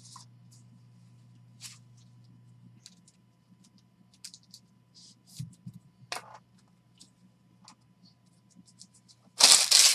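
Trading cards and plastic penny sleeves being handled: light scattered rustles, clicks and slides of card stock and plastic. A much louder rustling burst of about half a second comes near the end.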